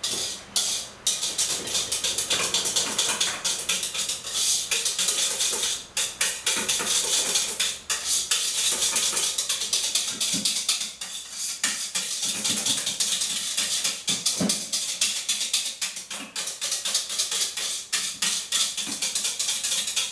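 Wire whisk rattling and scraping rapidly against a stainless steel bowl as mascarpone is beaten into the egg cream by hand, with a few brief pauses.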